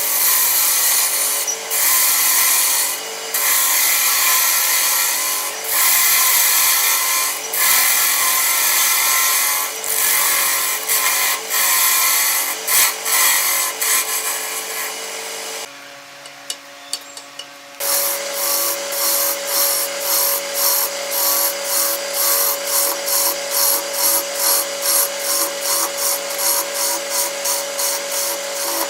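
Wood being turned on a lathe: a cutting tool scrapes the spinning wood in long uneven passes. After a short lull with a few clicks, a steady whine sets in with rhythmic rubbing strokes about three times a second.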